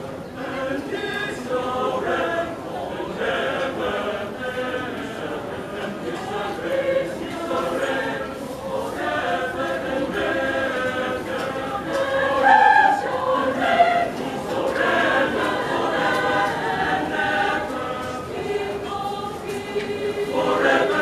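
Mixed choir of men's and women's voices singing a Christmas choral piece, swelling to its loudest about two-thirds of the way through.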